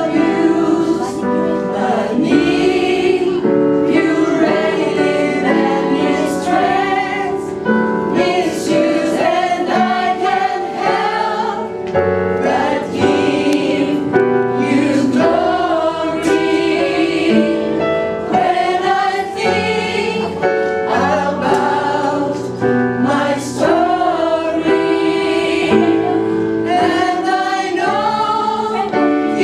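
Gospel song performed live: sung vocals carrying a melody over steady instrumental accompaniment.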